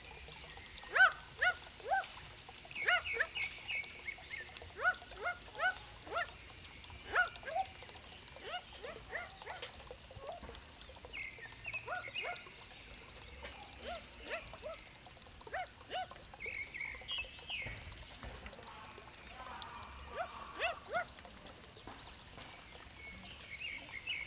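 A kowak kaok, a Papuan bird, calling: clusters of short, sharp, bark-like notes that slide down in pitch, mixed with harsher rasping notes. The calls thin out around the middle and pick up again toward the end.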